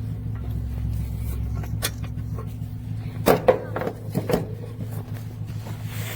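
A vehicle engine idling steadily, with a few sharp clicks and knocks, loudest between about three and four and a half seconds in.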